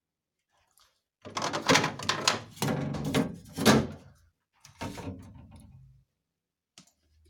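Plastic fittings of a refrigerator being handled: a run of knocks, clicks and rattles lasting about three seconds, followed by softer rattling.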